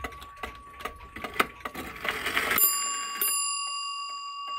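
Wm. L. Gilbert 30-hour kitchen clock ticking loudly, then its hour bell is struck a little past halfway and rings on with a clear tone that slowly fades.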